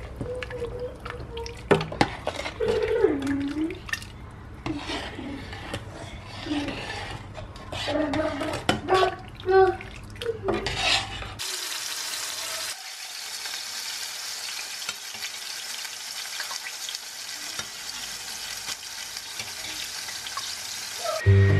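Metal ladle stirring soup in a stainless steel pot, with many sharp clinks and knocks against the pot for about the first half. After that a steady sizzling hiss takes over.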